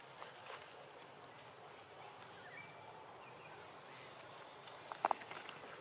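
Faint outdoor ambience of insects buzzing in a steady high band, with a couple of faint short chirps, and one brief sharp sound about five seconds in.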